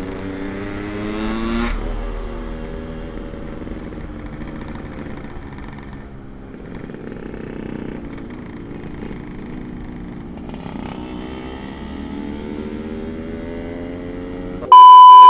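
Yamaha RX-King's two-stroke single-cylinder engine under way: the revs climb, drop back about two seconds in, then rise slowly again. Near the end a loud, steady high beep cuts in.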